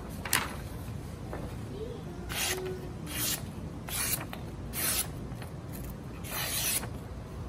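A freshly sharpened kitchen knife slicing strips off a sheet of printer paper: five short slicing strokes at uneven intervals, the last one the longest, after a brief click near the start.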